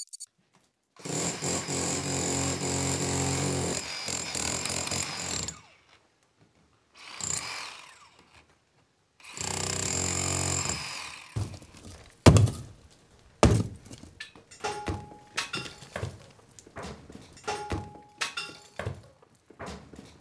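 Hammer drill boring into an old stone and brick wall: a long run of about four seconds, a brief one, then another run of a second or so. Several sharp knocks and scattered clattering follow.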